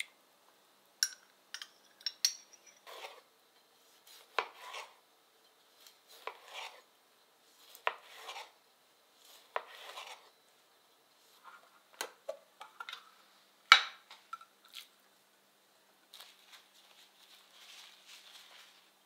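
A metal spoon clinks a few times against a small stainless steel pot of capers in water. Then a knife slices through a tomato on a wooden cutting board in slow, separate strokes, each ending in a tap on the board. Near the end comes the soft rustle of a paper towel patting raw fish dry.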